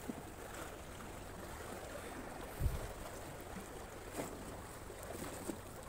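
Steady low hiss of wind and water, with one dull bump about two and a half seconds in and a few faint ticks from handling a freshly caught fish being taken off the hook.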